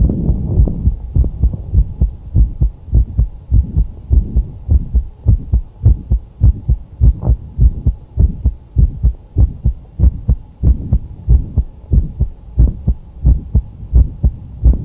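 Human heart sounds: a regular beat of low thuds, about two a second, with a mid-systolic click in each beat. Such a click is typical of mitral valve prolapse.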